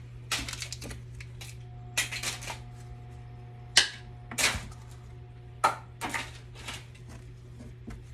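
Small plastic and metal parts of a disassembled inflator/deflator clattering as they are handled and dropped: a string of sharp knocks and clicks, the loudest about four seconds in, over a steady low hum.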